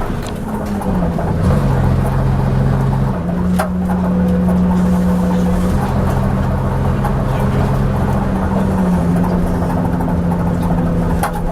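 Leyland Atlantean double-decker bus heard from on board, its engine running under way with a steady drone that steps in pitch several times as it changes gear. A couple of sharp clanks are heard over it, a little past three seconds in and near the end.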